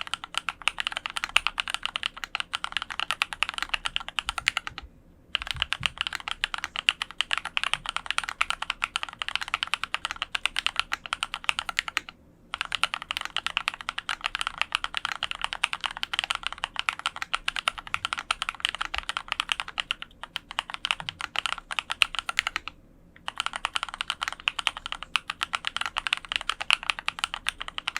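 Fast, continuous typing on a Dolphin 2021 custom mechanical keyboard with lubed linear switches (Cherry black housings with Kailh red stems) on an aluminum plate with foam. The keystrokes come in a dense stream broken by short pauses about five, twelve, twenty and twenty-three seconds in.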